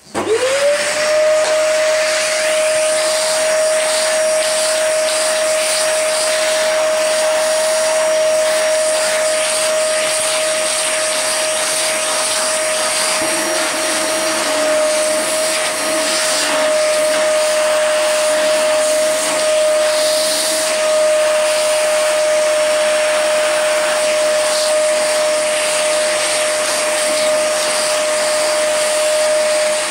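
Vacuum cleaner switched on and running, its motor whine rising within about a second to a steady pitch over a rushing of air as it cleans a keyboard.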